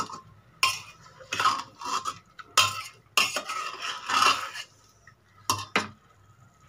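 A steel spoon stirs mutton, onions and spices in a pressure cooker, scraping and clinking against the pot in a series of short strokes. The last two strokes come close together, and then it stops shortly before the end.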